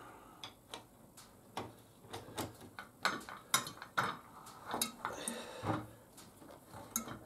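Irregular metallic clicks and clinks of tools and small parts being handled during the disassembly of a barber chair's hydraulic pump, about a dozen sharp knocks with short gaps between.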